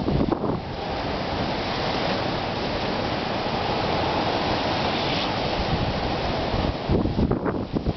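Wind blowing steadily through a snow and sleet storm, a dense hiss, with gusts buffeting the microphone at the very start and again about seven seconds in.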